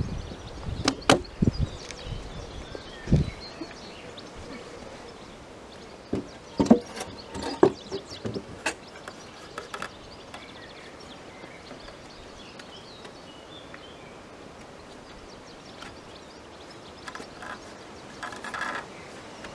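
Knocks and thuds of a heavy porcelain sink being set onto a wooden frame and shifted about: a few sharp knocks early on and another cluster about six to nine seconds in, then a short scrape near the end as the sink is pushed into place.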